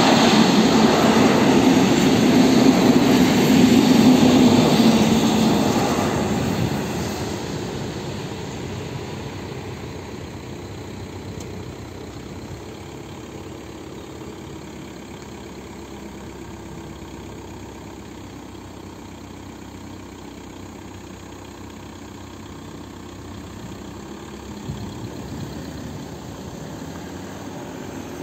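Passenger train running past at a level crossing, loudest for the first six seconds, then fading away by about eight seconds. A quieter steady hum of road traffic waiting at the crossing fills the rest.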